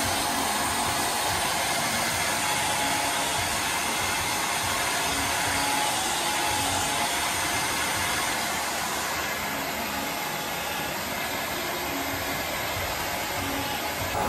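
Hair dryer blowing steadily, an even rushing noise with a faint motor hum under it.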